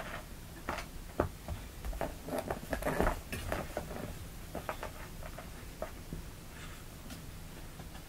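Two kittens scuffling over a string toy on a carpeted floor: scattered light knocks, pats and scrabbling, busiest about three seconds in.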